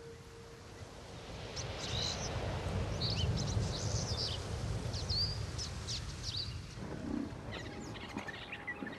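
Birds chirping and calling in short bursts over a steady outdoor ambience with a low rumble that swells in the middle.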